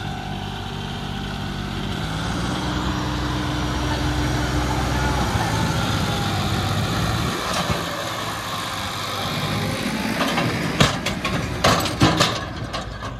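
John Deere 5210 tractor's three-cylinder diesel engine working under load as it drags a land leveller through dry soil; its note rises about two seconds in, holds, then eases off after five or so. Several sharp knocks come near the end.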